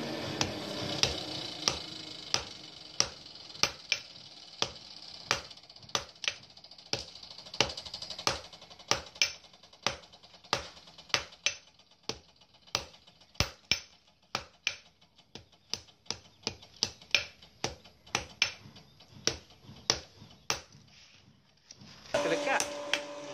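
Hand hammer beating a red-hot iron keris blade held in tongs on an anvil block, sharp ringing blows at about two a second. The blows stop near the end and a steady hum starts.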